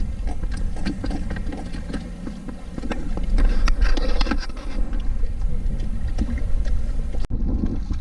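Hands working a sabiki handline rig at the rim of a plastic fish bucket: irregular clicks and knocks over a steady low rumble, cut off abruptly near the end.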